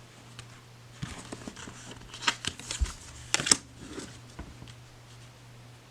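Tarot cards being handled and laid down: a run of light clicks, flicks and rustles of card stock, sharpest about two and a half and three and a half seconds in.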